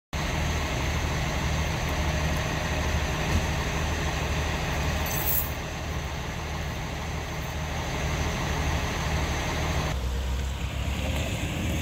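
A vehicle engine idling steadily with a low hum. The sound changes about ten seconds in.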